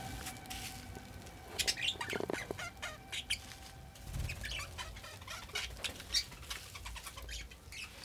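Budgerigars chirping and fluttering their wings in a wire aviary cage, with many short, quick chirps starting about a second and a half in.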